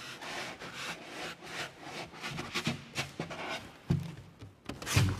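Polystyrene packing inserts being worked out of a cardboard box, scraping and rubbing against the cardboard in a run of irregular scrapes, with a couple of louder knocks near the end.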